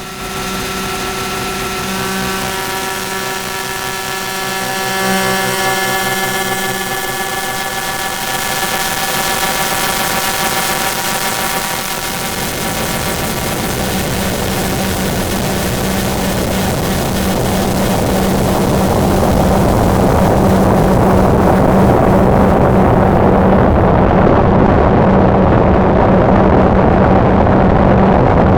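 Circuit-bent, feedback-looped guitar pedal (EQD Life and DOD Carcosa clones) self-oscillating into a loud electronic drone: a buzz of several steady pitches over hiss that, about twelve seconds in, turns into a denser, louder noise wash with a steady low hum, its highest hiss falling away near the end.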